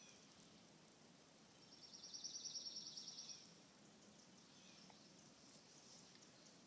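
A small songbird sings one rapid, even trill of high notes for under two seconds, about two seconds in, against near-silent woodland quiet.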